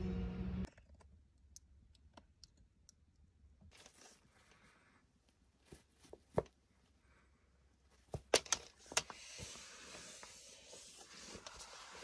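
A steady hum cuts off abruptly under a second in. After that come faint, scattered clicks and rustles as a baby macaw shuffles about on its bedding and towel, with a few sharper clicks about eight to nine seconds in.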